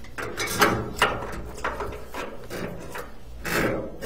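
Irregular scraping, rubbing and knocking as drain-cleaning equipment and the pipe-inspection camera's cable are handled, about six strokes with the loudest near the end.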